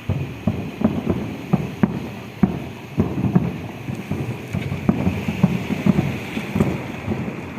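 Fireworks going off: an irregular string of bangs, about two or three a second, over a continuous rumble.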